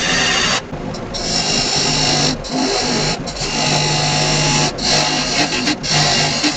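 Wood lathe running while a turning tool cuts the spinning laminated wood blank, giving a hissing cutting sound in a series of passes about a second long with short breaks between them, over a low steady hum.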